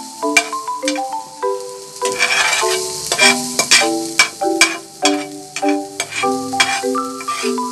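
Chopped onion sizzling in hot oil in a nonstick frying pan, stirred with a spatula that scrapes and clicks against the pan, under background music with a note-by-note melody.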